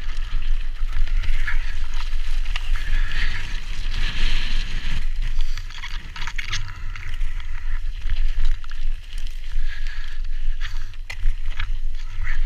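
Mountain bike rolling fast downhill over rock slabs and loose gravel: tyre noise and the bike rattling, with occasional sharp knocks over bumps. Heavy wind rumble on the camera's microphone.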